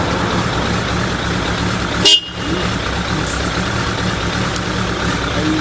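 Suzuki GSF1200's air/oil-cooled inline-four engine idling steadily, a stable idle. About two seconds in comes one sharp click, with the engine sound dipping for a moment after it.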